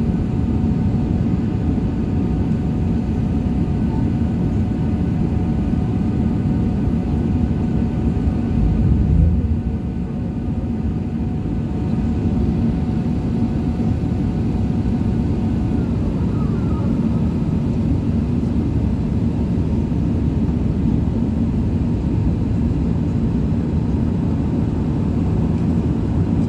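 Airbus A380 engine and airflow noise heard inside the passenger cabin: a steady, loud drone with a few faint constant tones. About nine seconds in there is a brief louder low rumble, after which the level eases slightly.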